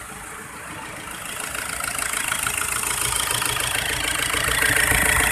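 Isuzu Trooper's 4JX1 3.0-litre turbodiesel idling with a steady clatter, growing louder over the first few seconds. The engine is said to have a misfiring injector.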